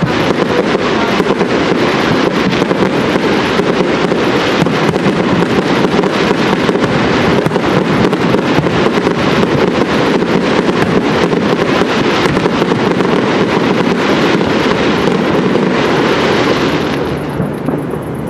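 Fireworks display: a dense, continuous run of rapid pops, crackles and bangs from shells bursting in the air, thinning out and getting quieter near the end.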